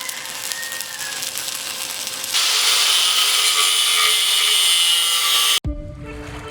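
Stick-welding arc from an MMA inverter welder, crackling and hissing. It gets much louder about two seconds in, then cuts off abruptly near the end as music starts.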